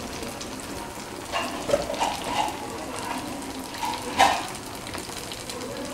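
Battered tempe menjes frying in hot oil with a steady sizzle, and a few brief louder sounds about one and a half to two and a half seconds in and again about four seconds in.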